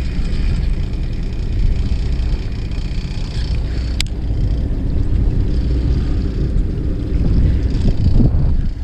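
Wind buffeting the microphone on a fishing boat, a steady low rumble, with one sharp click about four seconds in.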